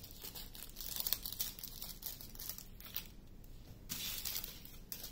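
Small plastic bags of diamond painting drills crinkling and rustling as they are handled and laid down, in irregular bursts.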